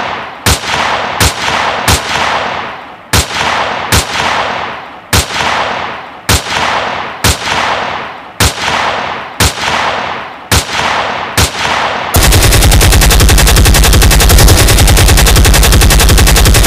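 Gunshot sound effects: single loud shots about one a second, each with a short fading echo, then about twelve seconds in a long, unbroken machine-gun burst that cuts off suddenly.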